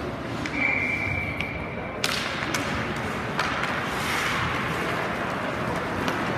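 Ice hockey play starting from a faceoff: a steady high tone lasts about a second and a half, then about two seconds in the play breaks out into skates scraping on the ice and sticks clacking against the ice and puck.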